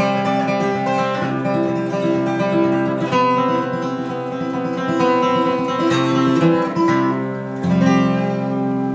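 Solo acoustic guitar fingerpicking the closing instrumental passage of a folk ballad, with a low bass note struck near the end.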